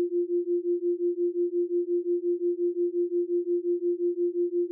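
A steady electronic pure tone at one pitch, pulsing evenly about five to six times a second: a brainwave-entrainment tone of the kind used in subliminal and binaural-beat or isochronic-tone tracks.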